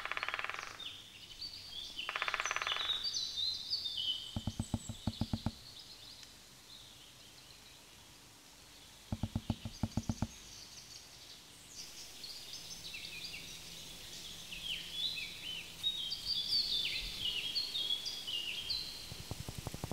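Woodpecker drumming on wood in short bouts: two fast rolls in the first three seconds, then slower runs of knocks about four and nine seconds in and again near the end. Small birds chirp high over the top.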